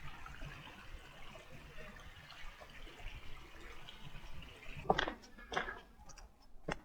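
Rushing river water, a steady hiss. About five seconds in, a few sharp knocks break in and the water sound drops away.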